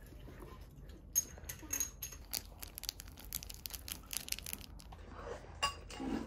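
A small seasoning sachet torn open and crinkled: a rapid run of sharp crackles lasting a few seconds, then softer sounds near the end.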